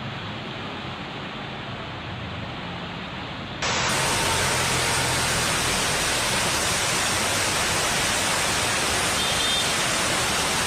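Steady hiss of heavy rain, which jumps suddenly louder and brighter about three and a half seconds in.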